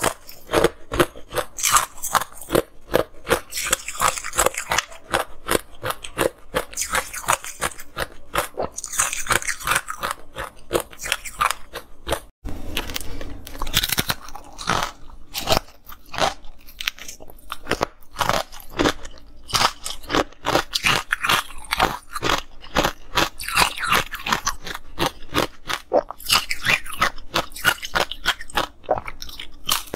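Close-up biting and chewing of frozen ice: rapid, sharp crunches one after another, with a brief break about twelve seconds in.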